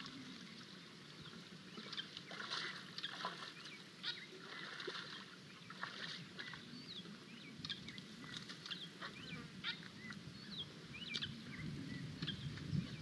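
Small birds chirping and twittering in short repeated calls over a low outdoor hiss, with soft splashes and squelches from a young African elephant wading through shallow muddy water.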